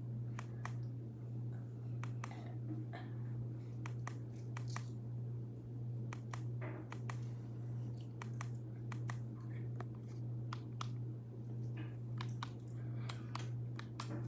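A steady low hum that swells and fades gently about once a second, under scattered light clicks and taps at irregular intervals.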